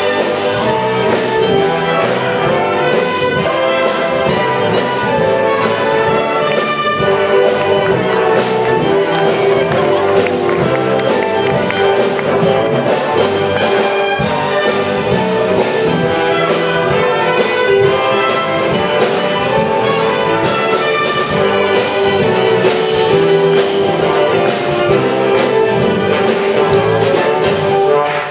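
Live wind band playing, with brass to the fore and flutes among the woodwinds, in a sustained, lively arrangement.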